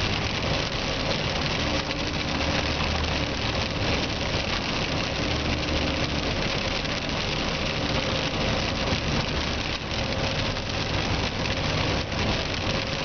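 Steady engine hum and wet-road tyre noise heard from inside a moving car driving through rain.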